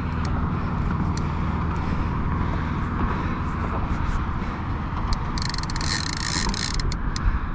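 Steady low rumble of wind buffeting the microphone over choppy water. About five seconds in, a fishing reel's clicker buzzes in a fast run of clicks for about a second as a fish takes line on the rod in the holder: a bite.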